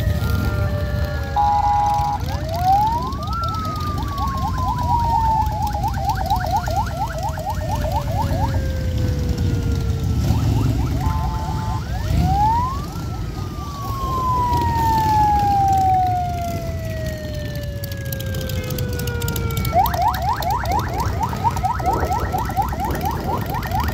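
A siren cycles through its tones over and over: a steep rising whoop into a long slow falling wail with a fast warble on it, short bursts of steady beeping tones, then a quick yelp. Under it runs the low rumble of Harley-Davidson V-twin motorcycles riding slowly past.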